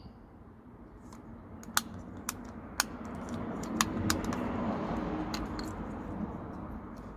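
Half a dozen sharp, irregular metallic clicks of hand tools or small parts being handled, over a low rumbling noise that swells in the middle and fades again.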